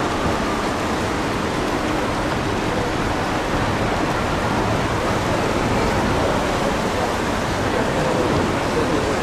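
Steady, dense roadside noise from a marathon passing by: a continuous wash of sound from the runners and the crowd lining the street, with no single sound standing out.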